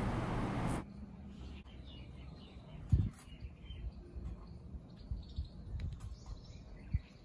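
Faint birds chirping in the background, with a few low thumps from handling, the loudest about three seconds in. A steady hiss in the first second cuts off abruptly.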